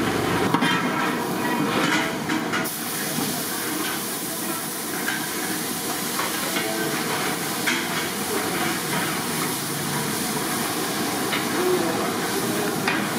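Steady hiss from a large aluminium pot of rice cooking over a high-flame commercial gas burner, with a few short clinks of a long metal ladle against the pot.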